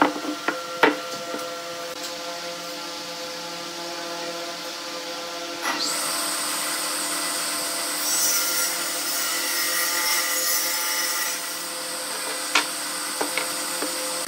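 A few sharp wooden knocks right at the start, then a power tool running steadily. About six seconds in it gets louder and hissier, and a couple of light knocks come near the end.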